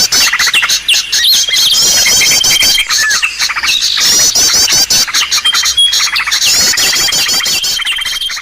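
Bird-lure recording for small songbirds: a dense, loud chorus of overlapping chirps and fast repeated high notes, with a long steady high whistle that comes and goes, played to call small birds in.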